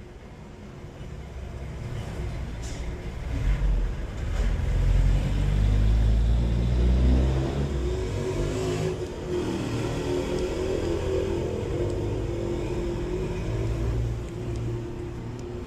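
A motor vehicle's engine running, swelling over the first few seconds, loudest around five to seven seconds in, then running on steadily at a somewhat lower level.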